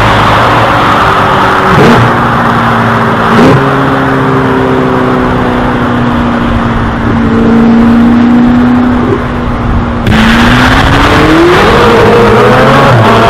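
Sports car engine and exhaust accelerating. The engine note climbs and jumps through two quick gear changes, holds steady for several seconds, then climbs again near the end.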